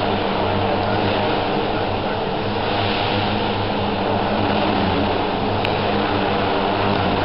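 Electric RC helicopter (Align T-Rex class) in flight: its main rotor and motor run with a steady whir and a low hum, holding an even level.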